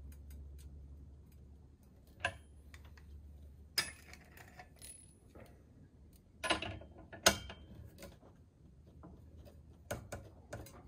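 Socket wrench tightening an outboard's propeller nut: scattered metallic clicks and clinks, with a few sharper knocks about two, four, six and a half and seven seconds in and a run of small ticks near the end. A low hum fades out in the first two seconds.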